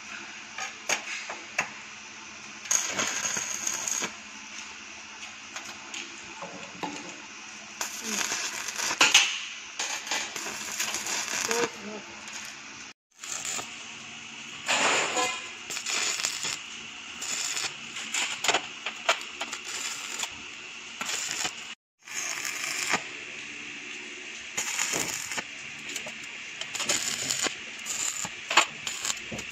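Stick (arc) welding of steel slats onto a cot frame: short tack welds, each a second or two of crackling arc, repeated many times with sharp metallic clicks in between.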